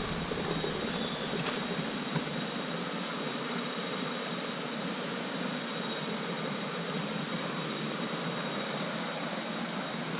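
Steady rushing of flowing stream water, with a thin constant high whine over it.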